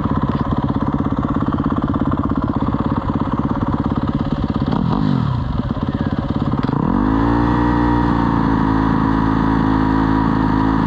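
Ford Mustang engine running with an uneven idle, then revved up about seven seconds in and held at a steady higher pitch before dropping back.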